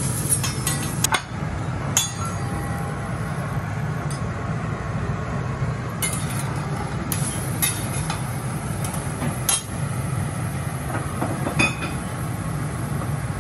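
Scattered metallic clinks and taps of a spatula and plate against a steel teppanyaki griddle, about seven in all, over a steady low hum.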